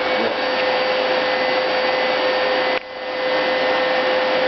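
Household vacuum cleaner running with a steady whine over its rushing air noise. About two-thirds of the way through the sound suddenly drops away and then swells back up within half a second.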